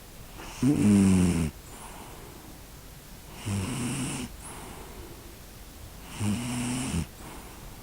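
Snoring: three rasping snores of under a second each, spaced about three seconds apart, the first the loudest.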